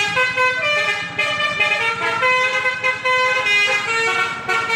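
Tour bus basuri horn playing a quick melody: a loud, unbroken run of horn notes stepping up and down in pitch every fraction of a second.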